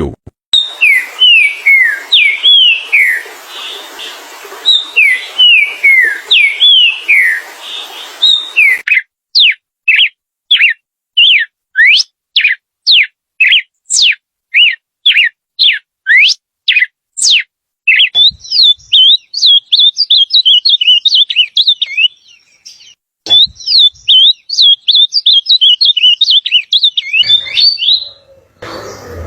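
Songbirds singing in three separate recordings edited together. First comes a repeated phrase of falling whistled notes over a background hiss. Then a run of quick rising whistles at about two a second, and from about two-thirds in a fast, warbling twitter.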